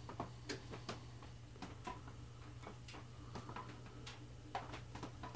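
Faint, irregularly spaced small clicks and ticks as a brass saxophone key and a metal pick are handled, over a steady low hum.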